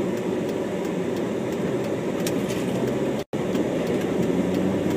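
Steady car interior noise while driving, the engine and tyres heard from inside the cabin as a low, even rumble. The sound cuts out for an instant about three seconds in.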